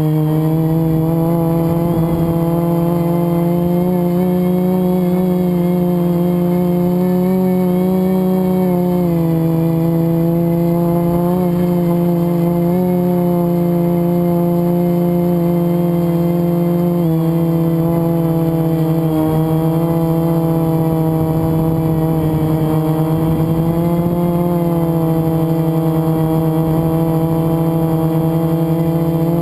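FPV multirotor's electric motors and propellers whining steadily in flight, the pitch stepping down slightly about 9 seconds in and shifting again near 17 seconds as the throttle changes. The flight is one the owner says was made with a bad motor bearing.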